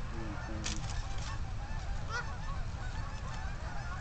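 Geese honking: many short, overlapping calls at different pitches from a flock, over a steady low wind rumble on the microphone.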